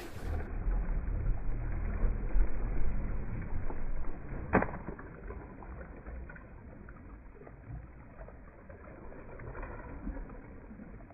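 Lake water lapping against shoreline rocks, with a heavy low rumble of wind on the microphone for the first four seconds or so and one sharp click a little after that.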